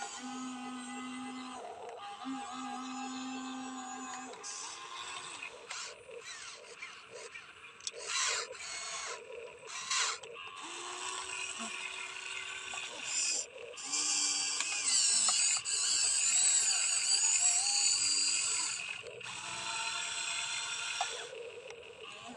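Electric motors and plastic gearboxes of a Huina 1593 RC excavator whining in runs that start and stop. A louder noisy stretch of scraping and clattering comes in the second half.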